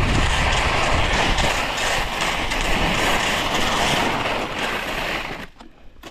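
Skis sliding and scraping over hard spring snow in a loud continuous rush, which drops away suddenly about five and a half seconds in as the skier stops.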